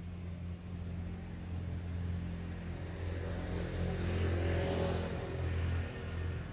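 A passing motor vehicle's rumble that swells to a peak about four to five seconds in and then fades, over a steady low hum.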